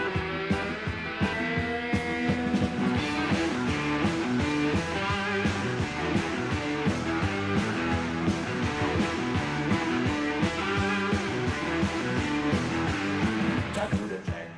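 Live rock band playing an instrumental passage: electric guitars over a steady drum beat.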